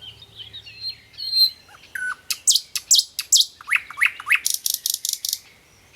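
A songbird singing a varied phrase: soft twitters and whistles, then a series of loud, sharply falling notes, a few rising notes, and a fast trill near the end.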